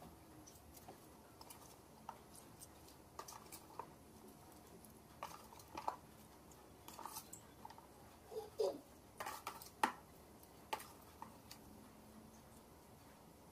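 Cut cabbage leaves dropped by hand from a plastic tub into a frying pan: scattered light crisp rustles and clicks, with a short squeak about eight and a half seconds in.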